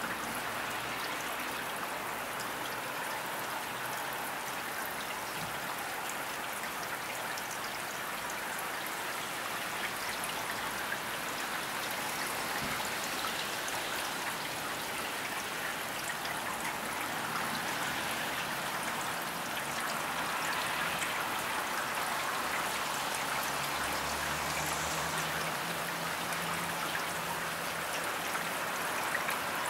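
Steady rain falling: an even hiss with fine pattering ticks. A faint low hum comes in about two-thirds of the way through and fades near the end.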